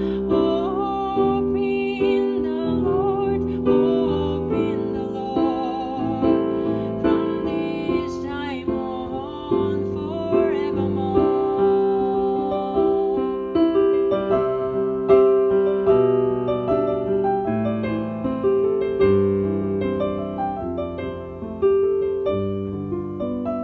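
Slow, gentle piano music: sustained chords with a melody that wavers over them in the first half, then piano alone.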